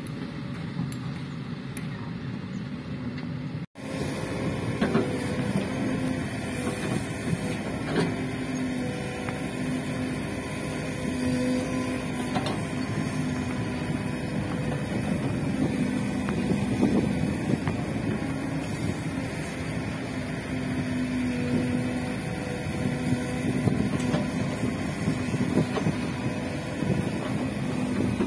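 Kobelco hydraulic excavator's diesel engine running under load, its hum rising and falling as the hydraulics work the boom and bucket through digging and dumping soil, with occasional knocks. Fainter for the first few seconds, then after a brief dropout louder and closer.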